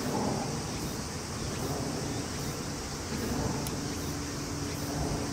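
Outdoor ambience: a steady low rumble under a continuous high insect drone, with a faint high chirp pulsing about once a second. A faint steady hum joins about three and a half seconds in.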